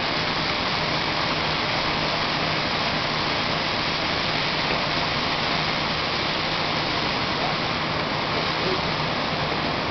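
Steady, even background rush of a large warehouse hall, with a faint low hum underneath.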